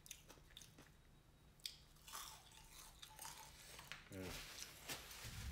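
Faint chewing and crunching on fried catfish nuggets and fries, with a few sharp mouth clicks.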